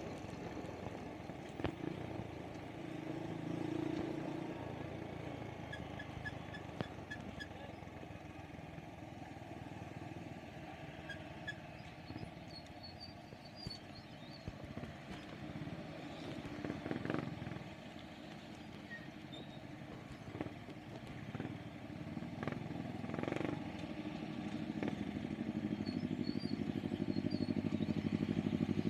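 Motorcycle engine running steadily while riding in traffic, with road and wind noise and a few short knocks. Over the last few seconds the sound grows louder as other motorcycle engines close by join in.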